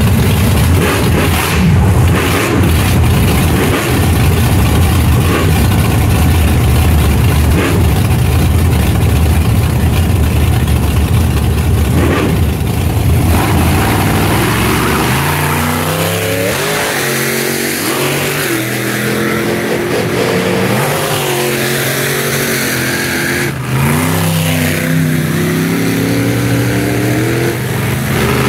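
Monster truck engines running loud as the trucks drive slowly past one after another: a heavy low rumble for the first half, then revs rising and falling over and over from about halfway through.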